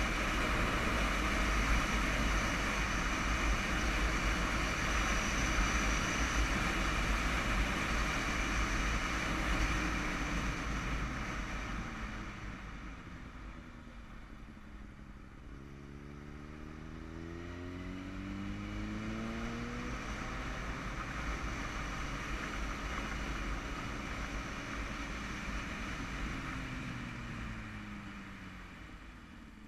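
Motorcycle ridden downhill, heard from the rider's helmet: a loud rush of wind on the microphone at speed that eases off about twelve seconds in as the bike slows for a bend. The engine note then climbs as it accelerates out of the corner, and falls away again near the end as it slows for the next bend.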